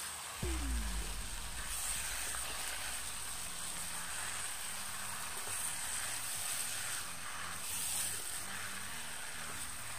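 Mutton and onion masala sizzling in hot oil in a kadai as it is stir-fried and turned with a wooden spatula, a steady hiss. A low thump about half a second in.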